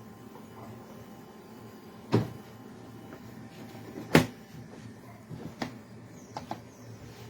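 Hard plastic dog-crate parts knocking and clacking as they are handled and fitted together: five sharp knocks, the loudest about four seconds in, with a quick pair of light clicks near the end.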